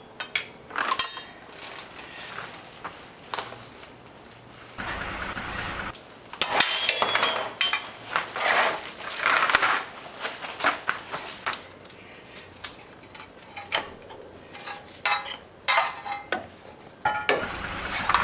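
Irregular metallic clinks and knocks, with a few longer scraping stretches, as a Hummer H3's front CV axle (half shaft) is pried and worked loose with a pry bar and pulled out by hand.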